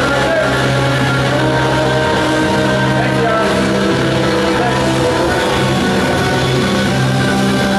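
Live rock band playing loud and steady: electric guitars through Marshall amps with bass and drums, the guitars holding long notes.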